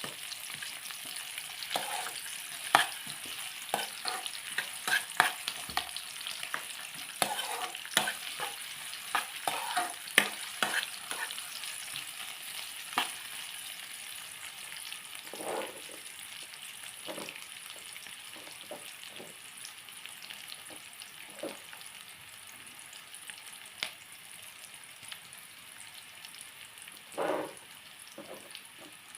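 Food sizzling in hot oil in a pan, stirred with a utensil that clicks and scrapes against the pan. The taps come thick in the first half and grow sparser later.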